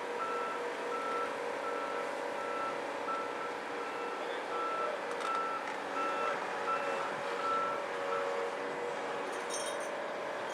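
Volvo tracked excavator's diesel engine running while its travel alarm beeps rapidly and evenly as the machine moves on its tracks; the beeping stops about eight seconds in. Light metallic clinks follow near the end.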